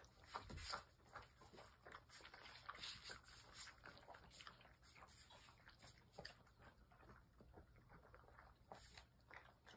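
A litter of puppies eating soft puppy food together from a stainless-steel feeding pan: a faint, irregular run of many small smacking, lapping and chewing clicks.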